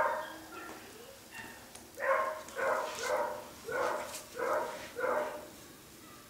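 Beagle puppy barking: six short, high barks about half a second apart, starting about two seconds in.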